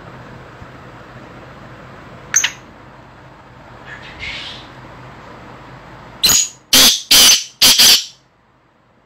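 Black francolin calling: four loud notes in quick succession near the end, after a single short sharp note a little over two seconds in, over a steady low hum.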